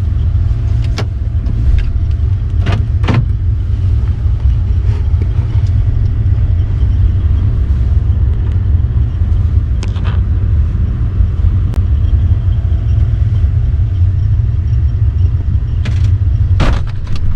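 Car cabin road rumble while driving: a steady low drone from the tyres and engine, with a few brief knocks or clicks.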